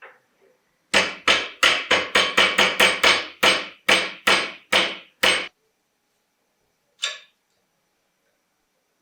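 Hammer blows, a quick run of about thirteen sharp strikes with short ringing over some four seconds, then a single strike about a second and a half later.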